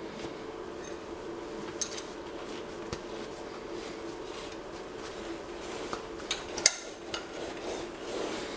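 Metal hand tools clinking and tapping against a steel faceplate and its centre nut, with a sharp clink about two seconds in and a cluster of clinks around seven seconds in, the loudest among them. A steady low hum runs underneath.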